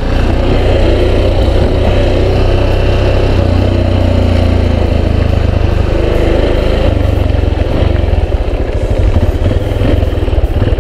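Yamaha XTZ 250 Lander's single-cylinder engine running steadily as the motorcycle rides along a dirt road, a constant low rumble.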